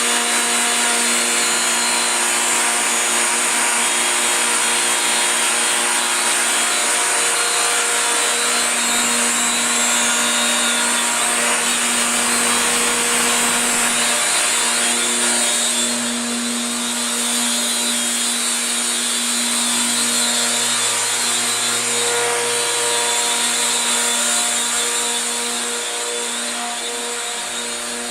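CNC router spindle running steadily as its bit cuts a sign: a constant pitched whine over the hiss of cutting, dropping a little in level near the end.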